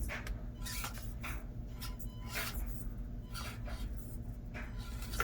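Small RC rock crawler's tires and plastic chassis scrabbling and scraping over rocks in a string of irregular scrapes and clicks, over a steady low hum.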